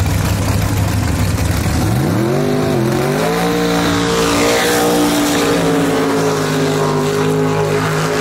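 Drag race car's engine idling with a low rumble, then revved up sharply about two seconds in and held at a steady high rpm for a burnout.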